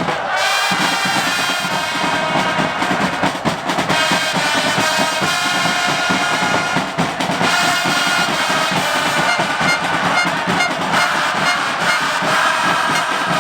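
A football supporters' section singing a chant in unison over steadily beating drums, loud and continuous.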